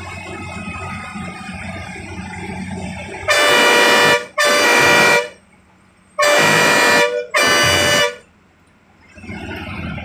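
Bus horn sounded in two pairs of loud blasts, each blast about a second long, as a warning when nearing a blind hairpin bend on a mountain road. Steady cabin rumble runs beneath the first few seconds.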